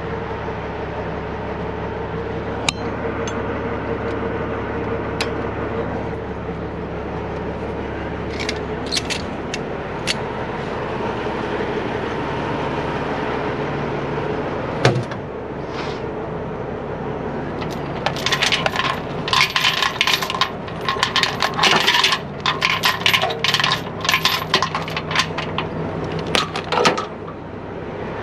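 Steel tow chains and hooks clinking and clanking as they are handled at a tow truck's rear compartment, over a diesel engine idling steadily. There are scattered clinks and one sharp knock about halfway through, then a dense run of clanking and rattling in the last third.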